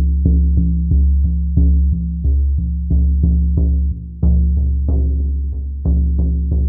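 A 20-inch buffalo-skin shamanic frame drum on a willow frame, struck with a soft beater in a steady, even beat. Each stroke gives a deep boom whose low ring carries on into the next stroke.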